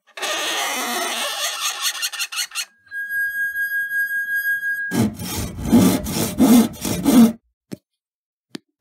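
A short sequence of object sounds: hard rubbing of a rubber object against a ribbed surface, then a glass rim rubbed with a finger so that it rings one steady high tone, then a run of about eight rasping strokes. Near the end, two small plastic clicks from a spice shaker's flip cap.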